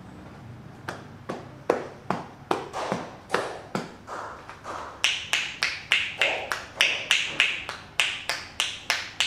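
Hands slapping in a rhythmic percussion massage, about two to three slaps a second, starting about a second in and turning sharper and louder about halfway through.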